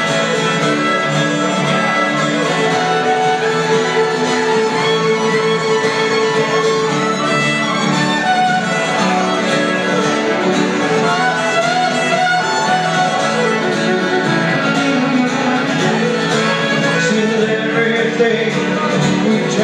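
Country-style instrumental break: a fiddle plays the melody over a strummed acoustic guitar.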